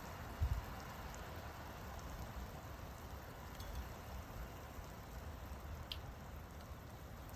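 Steady rain falling, with one short low thump about half a second in.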